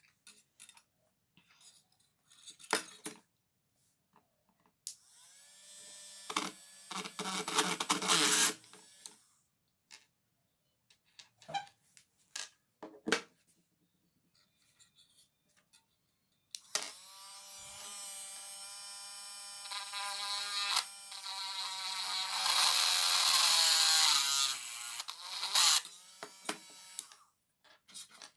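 Small 12-volt DC motor of a homemade drill whirring in two runs, a short one and a longer one of about nine seconds. On the longer run the pitch wavers and drops before it stops. A few short clicks and taps fall between the runs.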